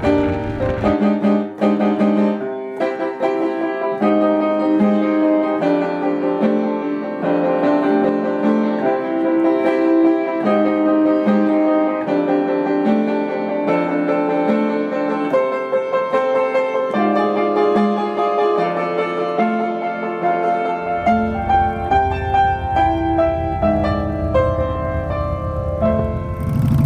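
Background piano music, instrumental, with an even repeating pattern of notes. A low rumbling noise comes in under it about three quarters of the way through.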